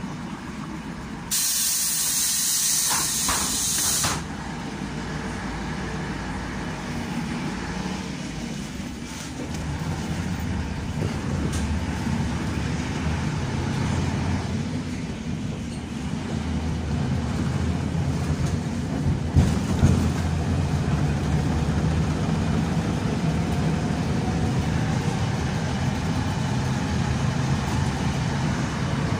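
Neman 5201 city bus heard from inside the cabin: a loud air hiss lasting about three seconds as the pneumatic doors close, then the engine and running gear as the bus pulls away and drives on, getting louder as it gathers speed. There are two sharp knocks about two-thirds of the way through.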